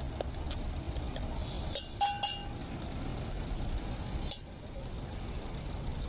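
A steel spoon clinking against a stainless steel mixing tin: a few light taps, with the loudest two ringing clinks about two seconds in, over a steady hum of street traffic.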